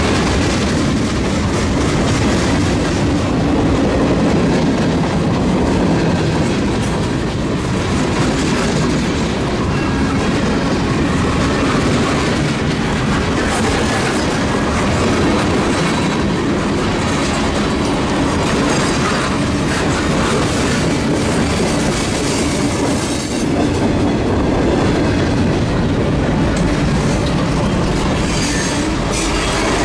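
Freight train rolling past close by: steady rumble and clatter of the cars' wheels on the rails as lumber flats, boxcars and tank cars go by.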